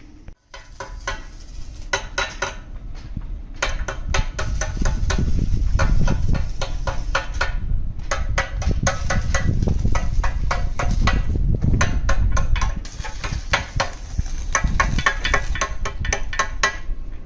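Metalwork on a steel bilge box: rapid, irregular metallic knocks and clinks on steel over a low rumble, broken by short pauses.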